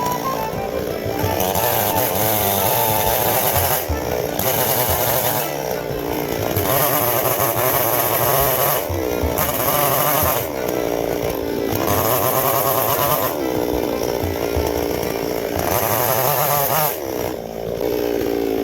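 Chainsaw milling knots off the underside of a log, revving up into each cut and easing off again every couple of seconds. It drops back toward idle near the end.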